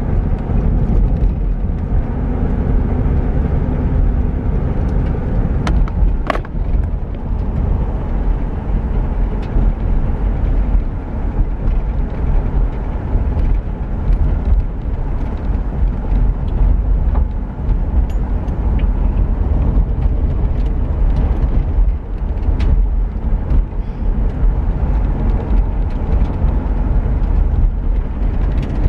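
1984 Pontiac Parisienne station wagon on the move: steady low engine and road noise, with a couple of brief clicks. The car is running normally after its ignition module was replaced.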